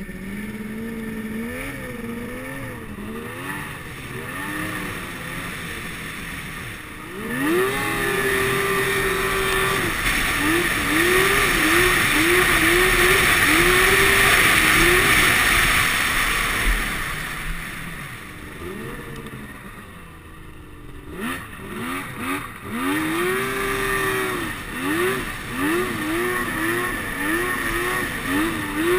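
Snowmobile engine under way, revving up sharply about seven seconds in and holding high with a loud rushing noise, easing off, then revving up and down in quick blips of throttle near the end.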